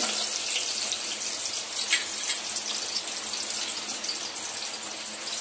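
Sliced onions frying in hot ghee in a stainless steel pot: a steady sizzle with fine crackles and a few louder pops about two seconds in.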